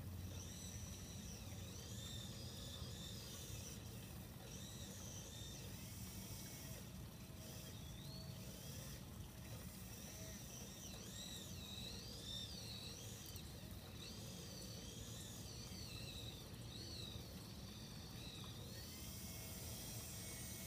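Small electric winch motors of an RC crawler crane whining faintly, the high pitch wavering up and down as the bucket is worked, over a low steady hum.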